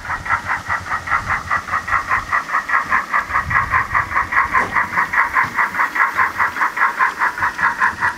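OO gauge model steam locomotive's onboard sound playing steady exhaust chuffs, about five or six beats a second, through a small speaker as it runs.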